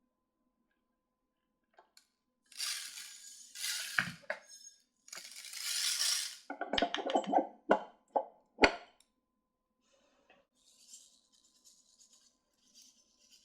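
Two bursts of hissing, then a quick run of clinks and sharp taps of small hard objects, the loudest two taps about a second apart, followed by faint scratchy hissing.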